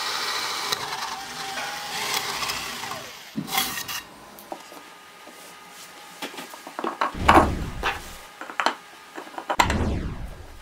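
An electric drill runs in a pine board and winds down about three seconds in. Later, steel bolts knock and clatter against the wood as they are handled and pushed into the drilled holes.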